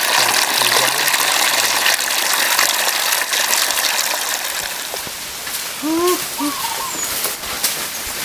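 Water gushing from an open pipe outlet and splashing onto flooded ground, a steady rushing that eases slightly about halfway through.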